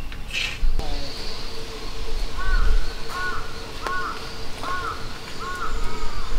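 A crow cawing five times in an even series, each caw short and arched in pitch, starting about two seconds in. A brief hiss sounds about half a second in.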